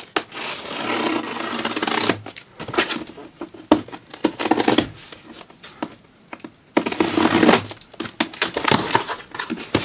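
A cardboard box being opened by hand: packing tape tearing and cardboard rubbing and scraping. Two longer tearing stretches, one at the start and one about two-thirds through, with short scrapes and clicks between them.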